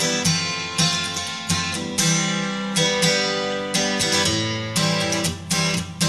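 Background instrumental music of plucked and strummed strings, with new notes struck at a steady, even pace.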